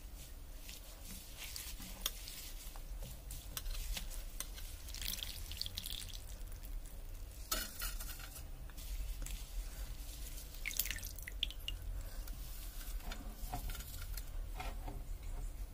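Water splashing and dripping as moringa leaves are swished and lifted by hand in a metal bowl of water, with a few light clicks against the bowl.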